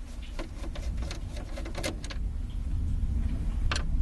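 Scattered light clicks and knocks of a screwdriver backing screws out of plastic dashboard trim, over a steady low rumble.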